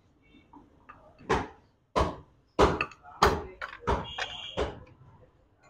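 A run of about six sharp knocks, evenly spaced roughly two-thirds of a second apart, with a brief metallic ring a little past the middle.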